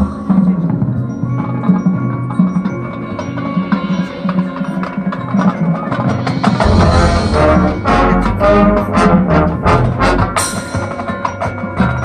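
Marching band performing, the front ensemble's mallet percussion (marimba, xylophone and bells) carrying the music with woodblock-like strikes; about halfway through the full band comes in with a heavy low end and denser percussion.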